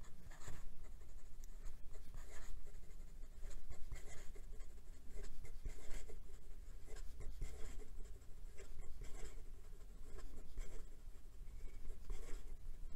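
Fountain pen's extra-fine steel nib writing fast looping cursive on lined notebook paper: a quick, uneven run of light scratchy pen strokes, the nib keeping up with the speed.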